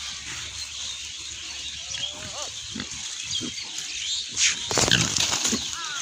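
A herd of pigs grunting as they forage, with short low grunts scattered throughout and one louder burst of sound about four and a half seconds in.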